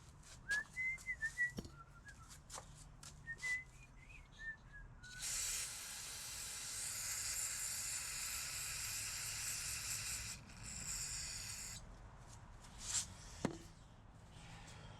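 Aerosol can of carburetor cleaner spraying onto a throttle body to dissolve carbon deposits: one long hiss of about five seconds, then a shorter burst. Before the spraying come a few sharp clicks and a faint wavering whistle.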